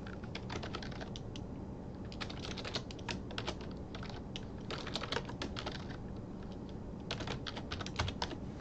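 Typing on a computer keyboard: quick runs of keystrokes in several short bursts, with pauses between them.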